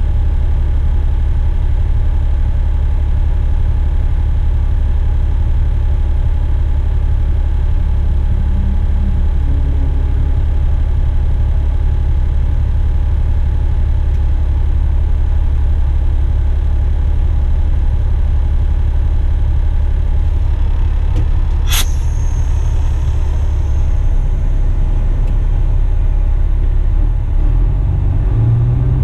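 Western Star truck's diesel engine idling at a standstill, a steady low rumble heard inside the cab. A single sharp click comes about three-quarters of the way through, and near the end the engine note rises as the truck starts to move off.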